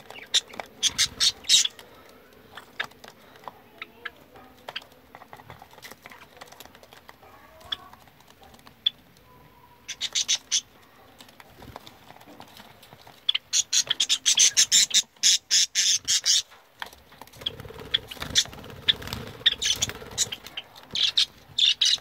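Caged small birds, Java sparrows and budgerigars, chirping in rapid runs of short, sharp high calls. The calls come in several bursts, the longest and loudest lasting about three seconds around two-thirds of the way through.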